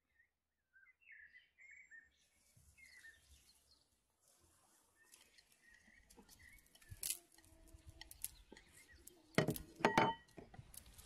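Small birds chirping briefly in the first few seconds, then scattered clinks of a kitchen knife and hands against a metal mixing bowl as chopped onion and greens are scraped in and mixed. Two louder knocks close together near the end set the bowl ringing.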